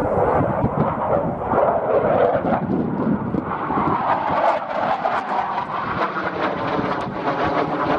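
Eurofighter Typhoon's twin EJ200 turbofan engines passing overhead in a display flight: a loud, rough jet noise with crackling, strongest around the middle as the jet comes closest.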